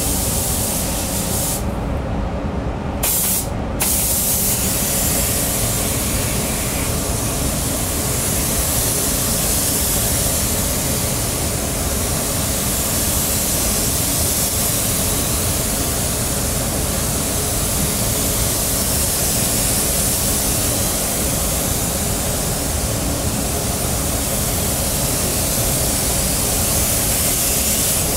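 Gravity-feed paint spray gun hissing steadily as it sprays paint onto a car body. Its high hiss cuts out twice briefly, about two to four seconds in, while a steady low rumble carries on beneath.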